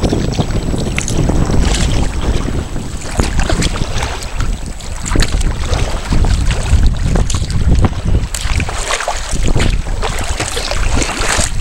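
Sea kayak moving through choppy water: heavy wind rumble on the deck-mounted microphone, with irregular splashes of water around the hull.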